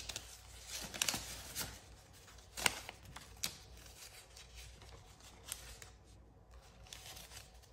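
Paper cash bills being handled: a string of short, crisp rustles and flicks as bills are shuffled and handled, busier in the first few seconds and sparser after.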